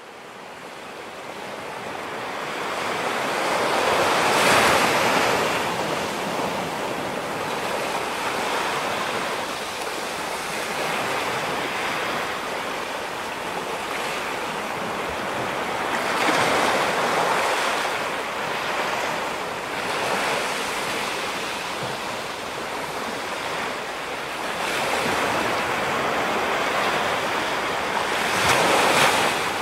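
Ocean surf breaking on a rocky shore: a steady rush of water that fades in at the start and swells with each breaking wave every few seconds, the loudest breakers about four seconds in and near the end.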